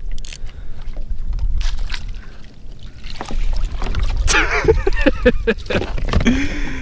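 Water splashing as a red drum is scooped up in a landing net beside a kayak and lifted aboard, with water streaming off the net and knocks against the hull. Wind rumbles on the microphone throughout.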